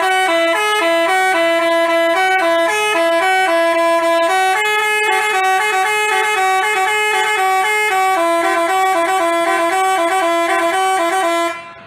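Bus telolet horn (Basuri multi-tone musical air horn) playing a quick melody of short alternating notes, then cutting off near the end.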